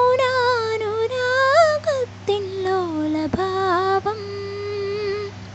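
A woman singing a Malayalam film song without accompaniment, holding long notes that bend and waver, and stopping near the end. A few light clicks of a metal ladle against the aluminium pressure cooker come through between the notes.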